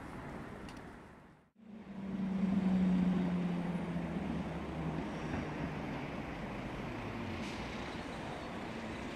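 Outdoor railway and city noise that fades to a brief silence about a second and a half in, then comes back as a steady rumble with a low hum. The hum is loudest a second or two later and fades out over the next few seconds.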